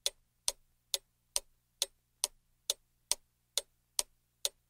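Clock ticking at an even pace, a little over two ticks a second, as a thinking-time sound effect while a quiz question waits for its answer.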